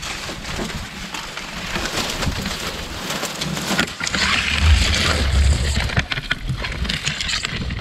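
Dry cattail stalks rustling and scraping along a small boat and over the camera as the boat is pushed through a reed bed: a dense, crackling rustle that grows louder about four seconds in, with a low rumble at that point.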